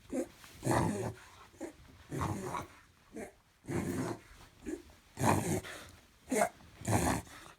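Dog reverse sneezing: a run of forced, rasping inhalations through the nose, coming about once every second and a half, each a short catch followed by a longer noisy pull.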